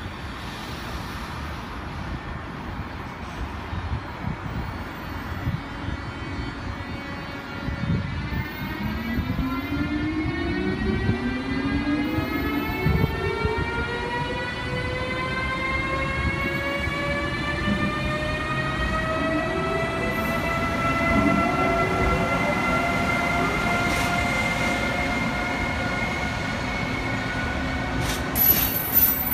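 Siemens ACS-64 electric locomotive pulling away from a stop: its IGBT inverters and AC traction motors give a whine of several tones that climb in pitch, steeply at first, then level off about twenty seconds in, over the rumble of the train rolling. A burst of sharp clacks comes near the end.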